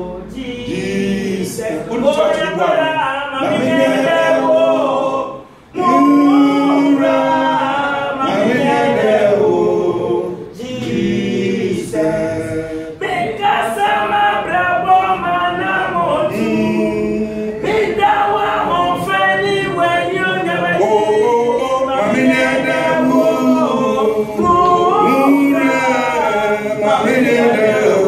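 Congregation singing a hymn together a cappella, led by a man singing into a microphone.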